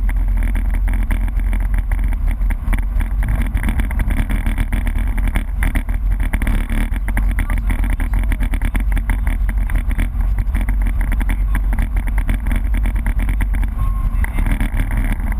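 BMW E30 rally car's engine running steadily under way, heard from inside the cabin.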